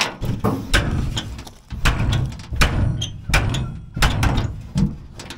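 Better Built aluminium diamond-plate truck toolbox lid being shut and worked down: a rapid series of metal knocks and thunks as it fails to latch, the lid's latch being bent.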